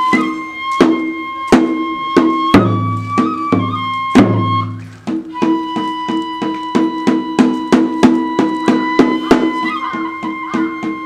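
Kagura music: a bamboo flute holds a high, steady note while drums beat a regular pulse. The beat quickens to about three strokes a second about five seconds in.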